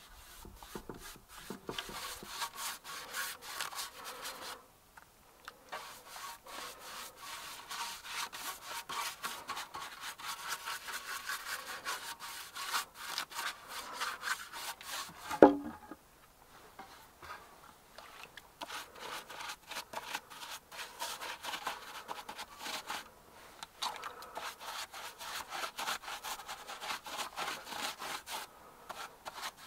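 Paintbrush scrubbing a liquid coating onto wooden boards in quick back-and-forth strokes, with a few short pauses. There is one sharp knock about halfway through.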